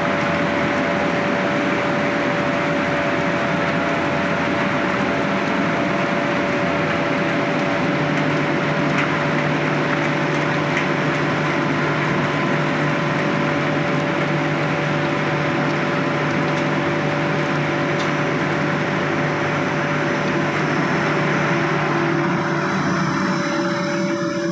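Heavy rain pouring down on a paved yard and metal sheds, a dense steady hiss, over a steady machine hum with several held tones. Near the end the rain hiss falls away and the hum of a running air compressor is left.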